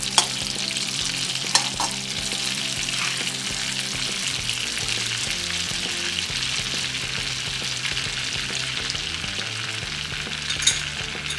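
Mustard and cumin seeds sizzling in hot oil and butter in a metal kadhai: a steady frying hiss, the start of a tadka (tempering), with a few sharp clicks near the beginning and one near the end.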